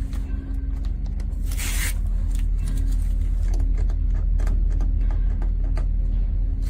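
Scotch contractor-grade masking tape handled during a peel-adhesion test: one short rasping tear of tape about a second and a half in, with small rustles and clicks, over a steady low hum.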